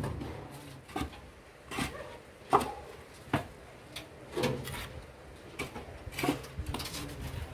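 Concrete hollow blocks clunking and knocking as they are lifted and set down on a truck bed, about eight sharp knocks at uneven intervals.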